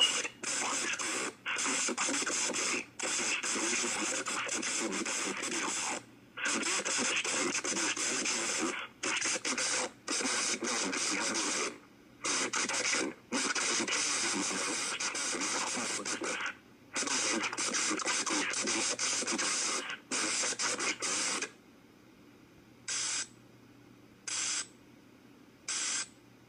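Emergency Alert System broadcast of a severe thunderstorm warning: a static-laden announcement that comes and goes in phrase-length stretches, then three short end-of-message data bursts about a second and a half apart near the end.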